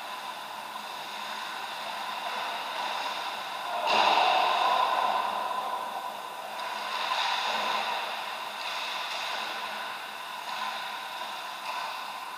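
Ice hockey game sounds in a rink: a steady noisy hiss, with a sudden louder burst about four seconds in that fades over a couple of seconds, and weaker swells after it.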